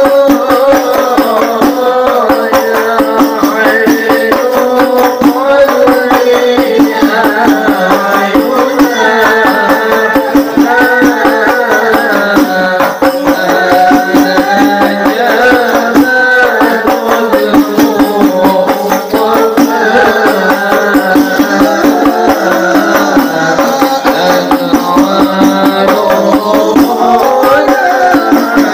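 Devotional sholawat sung by a group of voices over a fast, steady beat of hand-struck frame drums (rebana/terbang) in the Habsyi style, loud and unbroken throughout.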